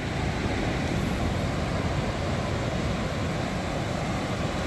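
Surf breaking and washing up a sandy beach: a steady rushing noise.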